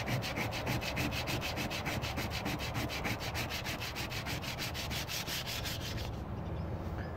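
220-grit sandpaper rubbed by hand over a steel car fender in quick, even back-and-forth strokes, taking the rust spot down to bare metal before body filler. The sanding stops about six seconds in.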